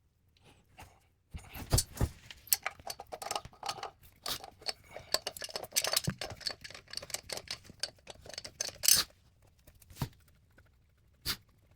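Hand tools and metal fittings clinking, clicking and scraping in a busy run of several seconds, then a few single knocks near the end.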